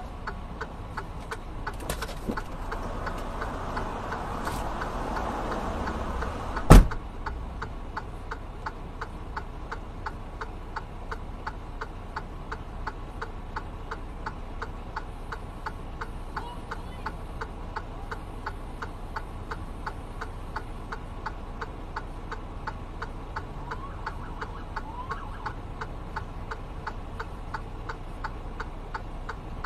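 A truck's hazard-flasher relay ticking steadily at an even pace, over the low hum of the idling engine. A couple of seconds in, outside traffic noise swells, and a single loud bang near seven seconds in is the cab door slamming shut.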